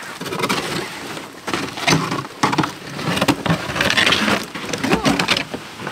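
Loaded sled being hauled up a snowy creek bank in uneven pulls: scraping and crunching through the snow, with knocks and rattles from the gear on it.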